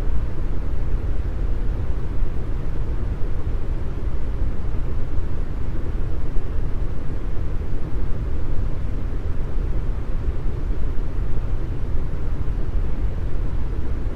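Deep brown noise: a steady, even hiss with most of its energy in the bass, fading toward the highs.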